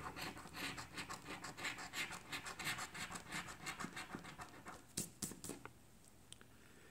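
A coin scraping the latex coating off a scratch-off lottery ticket in quick back-and-forth strokes, several a second, with a few sharper scrapes about five seconds in before it stops.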